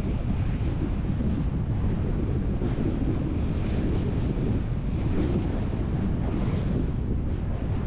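Steady road and wind noise of a car driving along a street at moderate speed, with wind buffeting the microphone.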